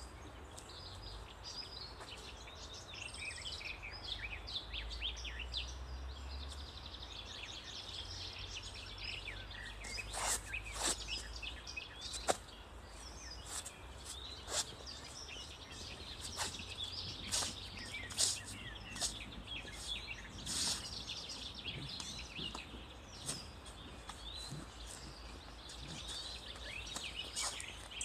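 Many songbirds singing and chirping together in woodland, over a steady low rumble. From about ten seconds in, sharp clicks or knocks come at irregular intervals, the loudest about twelve and eighteen seconds in.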